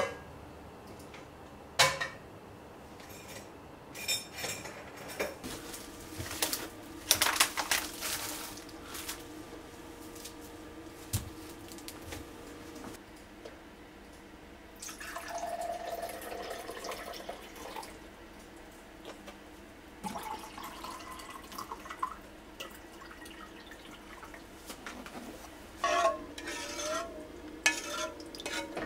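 Home cooking sounds: metal pots and pans clattering and knocking as they are handled, then liquid poured from a paper carton into a glass measuring cup about halfway through, then a spoon clinking and scraping in a metal saucepan near the end. A steady faint hum runs underneath.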